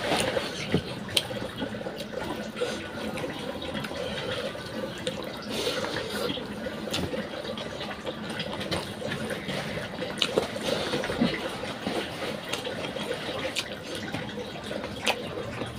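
Close-up eating sounds: fingers scooping rice off a banana leaf, chewing with wet, smacking mouth clicks scattered throughout, over a steady rushing background hiss.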